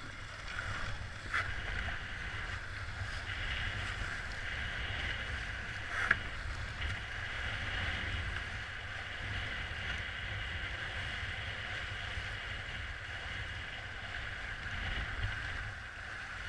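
Wind noise on the camera microphone and water rushing along the hulls of a Tornado catamaran under sail, a steady noisy rush with a sharp knock about six seconds in.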